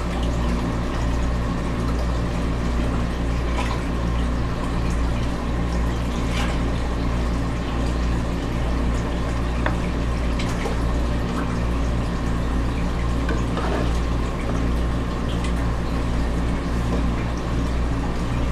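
Aquarium water circulation running steadily: a low pump hum under water trickling into the tank, with a few faint ticks.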